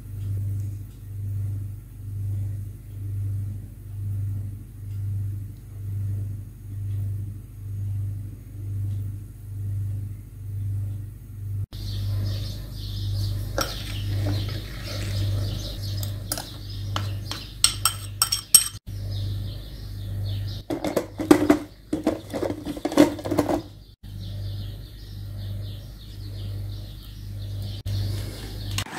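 Kitchen clinks: a metal spoon tapping and scraping on a glass bowl as powdered sugar is tipped into a plastic food-processor bowl, then a quick run of knocks as strawberries drop into the plastic bowl. A low, steady pulsing beat of about one and a half pulses a second runs underneath throughout.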